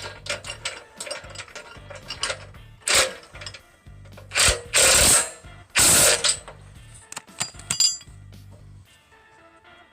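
Metal clicking and clanking of hand tools on a steel sawmill track, with a few louder ratcheting strokes near the middle: a ratchet wrench tightening the track bolts.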